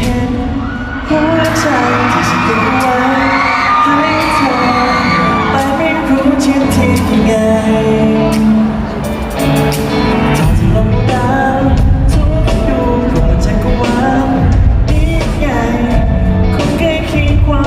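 A live band playing a pop-rock song with sung vocals over a steady drum beat, heard in a large hall.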